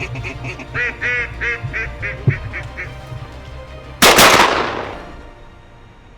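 A quick series of duck quacks, about three a second, that tapers off, then a single loud shotgun shot about four seconds in that rings out and fades.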